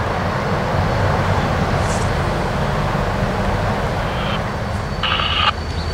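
Diesel-electric locomotive 2348 of the Cuyahoga Valley Scenic Railroad running with a steady low rumble as it rolls slowly in with its train. About five seconds in, a brief burst of noise from a scanner radio cuts in.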